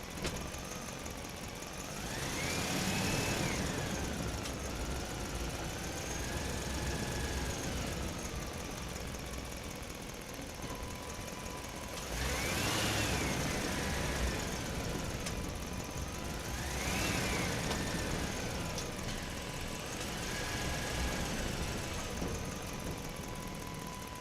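Truck engine driving through a parking structure, its note climbing and falling back about four times as it accelerates and eases off. A faint steady high tone joins about ten seconds in.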